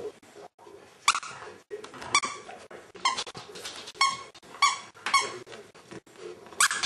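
Squeaky plush toy squeezed again and again: short, high-pitched squeaks, roughly one or two a second.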